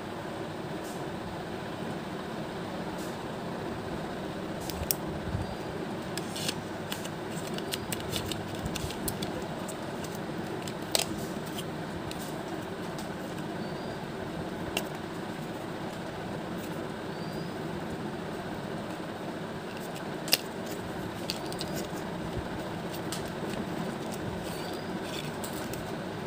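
Scattered light clicks and taps from handling a plastic pen and cardboard medicine-box packaging, with a few sharper clicks, over a steady room hum.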